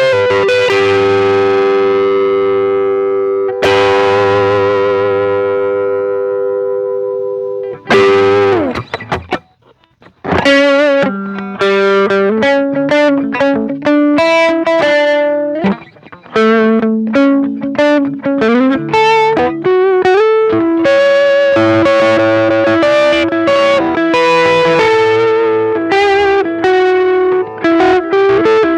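Distorted electric guitar played through a Ross compressor reissue, Tube Screamer-type overdrive, Stone Deaf PDF-2 and Fulltone Fat-Boost. Two long, sustained chords ring out, then a note bends down and there is a brief gap. After that comes a run of lead phrases with string bends.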